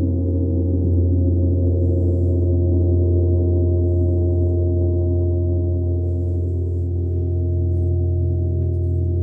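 Large hanging gong played with a soft felt mallet, giving a loud, sustained wash of many overlapping ringing tones over a deep steady hum.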